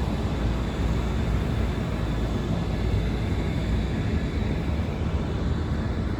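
Steady low outdoor rumble of ambient noise, even throughout with no distinct events.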